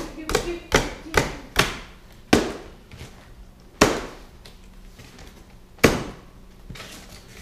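Taut plastic packing straps on a cardboard box being cut one after another, each giving a sharp snap as it lets go and slaps the cardboard. Four come in quick succession, then single snaps follow about two and a half, four and six seconds in.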